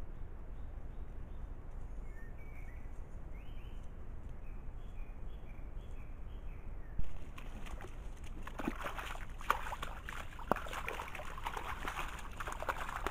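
Forest ambience through a trail camera's microphone: a steady low hiss with a small bird's short chirps. After a click about seven seconds in, a dense crackling rustle with scattered sharp clicks.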